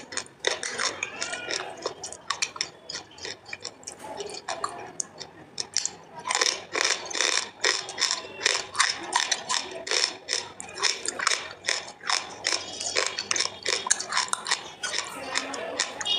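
Close-up crunching of crumbled baked clay being chewed, a fast run of crisp cracks that gets denser and louder about six seconds in.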